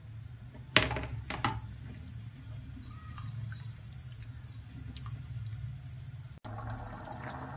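Steel spoon stirring a thin chicken curry in an earthenware pot: a few clinks of the spoon against the pot about a second in, then soft sloshing of the gravy over a steady low hum.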